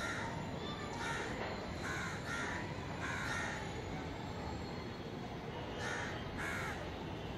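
A crow cawing: a run of short harsh caws, about five in quick succession, then two more a few seconds later.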